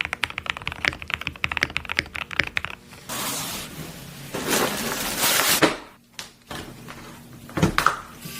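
Fast typing on a mechanical keyboard with Gateron Ink Black V2 linear switches: a quick run of key clacks for about three seconds. Then comes a rushing hiss, followed by a few single knocks near the end.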